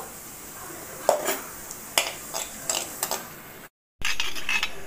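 A perforated steel skimmer ladle clicking and scraping against a kadai while stirring cumin seeds in hot oil, several sharp knocks over a steady light sizzle.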